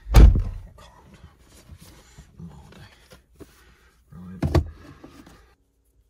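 A heavy thunk inside a car cabin, then quieter handling clicks and rustling of a plastic-wrapped gear knob, with a second short, loud knock or burst about four and a half seconds in.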